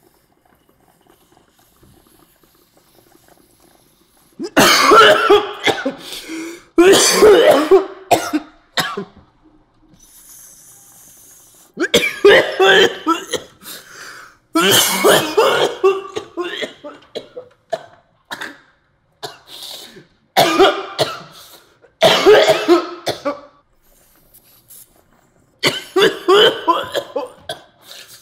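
A man coughing hard in several fits, starting about four seconds in after a quiet start. These are hacking coughs from inhaling cannabis concentrate vapour from two dab rigs at once.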